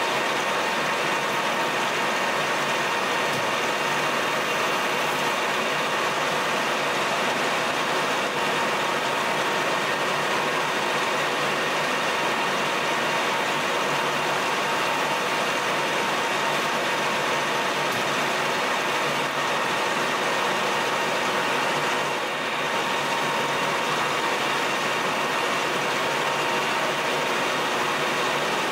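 Colchester Master 2500 lathe running steadily at high speed while turning down the outside of an aluminium part supported by a live centre.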